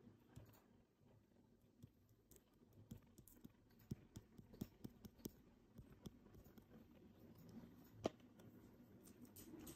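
Near silence with faint, irregular clicks and taps as a small container of powdered isopod food is tapped to shake the powder onto dry leaf litter; one sharper click comes about eight seconds in.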